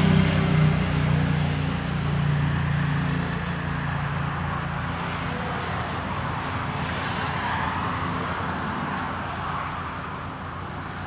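Mini FPV racing quadcopters flying between trees, their propellers whining, with the sound swelling and fading as they pass. A low engine-like hum fades away over the first few seconds.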